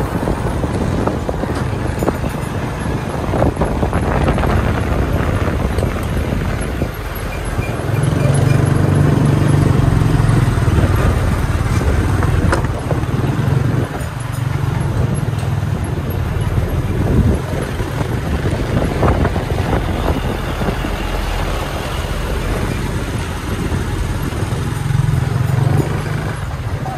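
Riding noise from a motorbike following a truck: the motorbike's engine running with wind rushing over the microphone, a low rumble that swells louder now and then.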